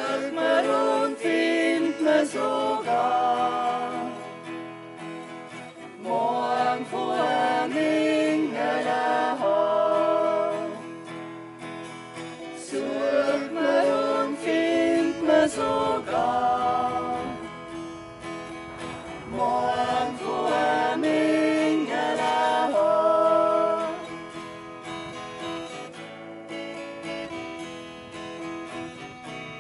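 An acoustic guitar is strummed while voices sing an Advent song in phrases. About three-quarters of the way through, the singing stops and the guitar carries on more softly.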